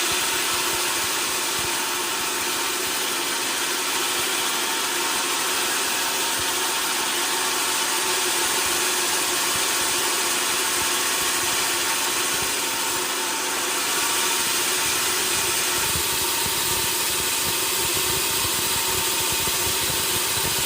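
Sawmill machinery running steadily: a constant engine-like drone with a steady hum and hiss that does not rise or fall.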